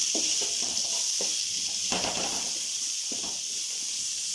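Onion and curry leaves frying in hot oil in a pan with a steady sizzle, while a spoon stirs and scrapes the pan a few times.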